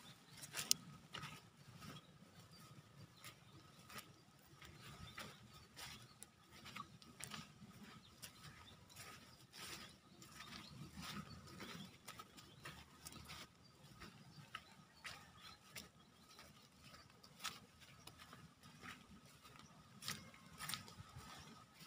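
Faint outdoor ambience: scattered soft clicks and ticks throughout, over a faint steady high tone.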